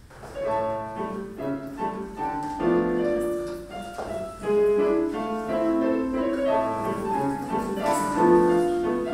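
Piano music, starting a moment in: a run of held single notes and chords.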